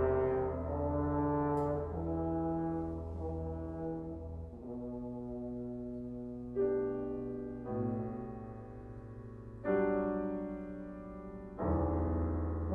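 French horn and piano playing slow held notes in classical chamber music. The horn moves from note to note, and the piano strikes new chords about six and a half, eight, ten and twelve seconds in.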